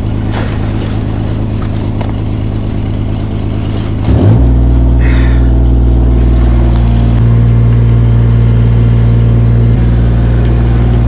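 An engine running steadily. About four seconds in it is revved up to a louder, heavier run and holds there.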